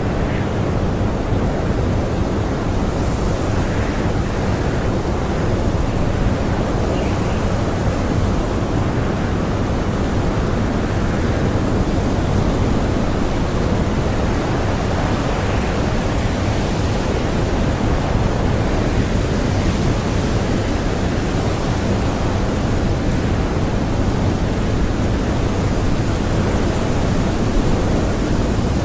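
Blizzard wind blowing as a steady, dense rush, heaviest in the low end and without distinct gusts.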